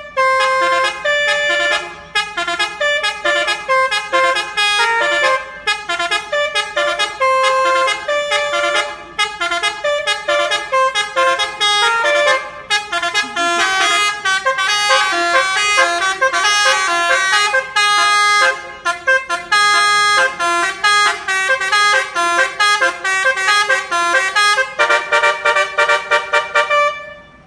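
Telolet basuri bus horn playing a fast melody of stepped notes, several a second, without a break. Near the end it runs into a quick string of short repeated notes, then stops.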